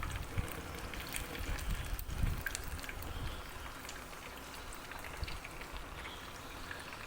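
Rain falling, a steady patter with scattered individual drops.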